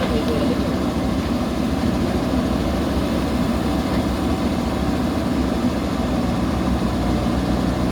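JCB backhoe loader's diesel engine running steadily at an even, low hum with no revving.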